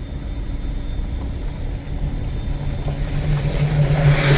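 Car engine and road noise heard from inside a moving car, a steady low rumble. From about halfway an engine hum grows louder, and a rush of noise swells near the end.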